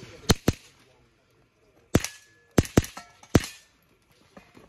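Custom Battle Arms semi-automatic rifle in .22 LR firing six sharp shots: a quick pair, a single about a second and a half later, another quick pair, and a last single.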